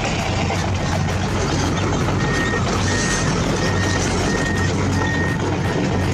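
RC toy truck's reversing beeper: a single high beep repeating about once every 0.7 seconds, starting about two seconds in, over a steady low hum.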